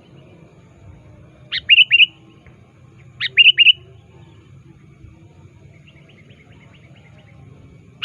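Male sooty-headed bulbul (kutilang) calling. It gives two loud short phrases about a second and a half apart, each a sharp note followed by three quick down-slurred whistles, then softer chatter, and a further phrase begins right at the end.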